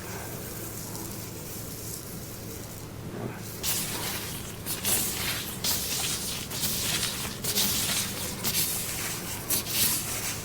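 Water hissing from a handheld shower head spraying onto hair during a salon hair wash. It starts about a third of the way in and comes in uneven surges, over a low steady hum.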